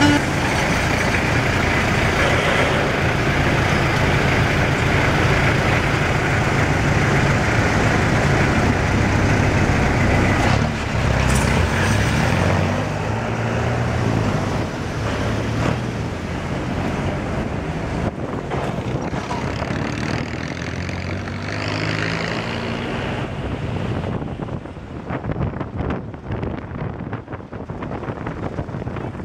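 Car engine running with road and tyre noise, heard from a moving car; the engine note rises and falls as it drives, and the sound gets quieter and more uneven near the end.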